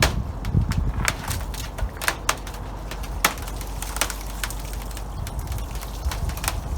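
Irregular sharp cracks and crunches of ice and a frozen tarpaulin, over a steady low rumble.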